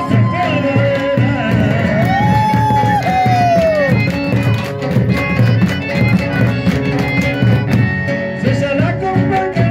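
Man singing into a microphone to strummed acoustic guitar and bandoneón; he holds a long note that falls away about four seconds in.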